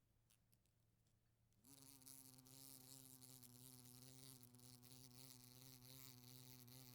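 A wasp buzzing against a window pane. After a few faint ticks, a steady buzz starts about a second and a half in and keeps going.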